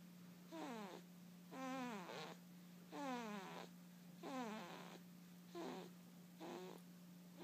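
Snoring: six breaths, roughly one a second, each a whistling tone that slides down in pitch. A steady low hum runs underneath.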